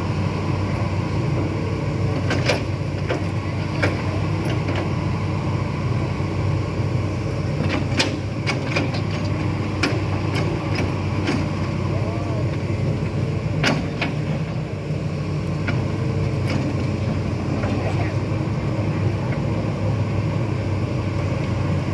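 Hitachi ZX210 excavator's diesel engine running steadily under load while its boom lifts, with a few sharp knocks and faint voices of onlookers.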